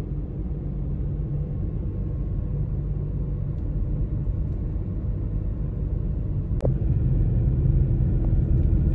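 Road and engine noise inside a moving vehicle's cabin: a steady low rumble, with one sharp click about six and a half seconds in.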